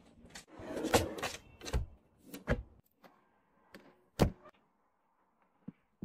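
Small objects handled and set down on a wooden surface: a soft rustle about a second in, then three separate knocks spread over the next few seconds.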